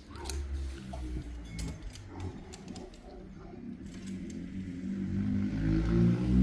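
Small clicks, scrapes and rustles of electrical cable being handled and pushed into the terminals of a 240-volt outlet, over low handling rumble. A low, muffled murmur builds and is loudest near the end.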